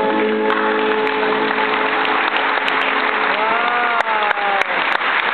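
Audience applauding as the last held notes of the ballet music stop about half a second in. About three and a half seconds in, one voice calls out over the clapping, its pitch rising then falling.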